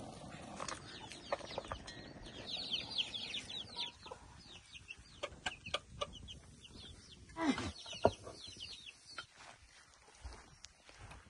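Birds chirping in quick runs of short, high, falling notes, with scattered clicks and a lower falling call about seven and a half seconds in.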